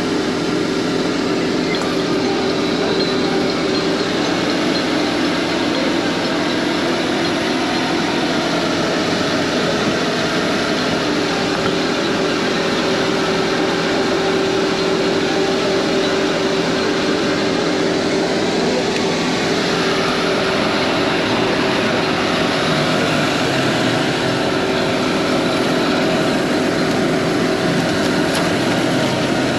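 A machine running steadily, with a constant hum over a broad, even noise.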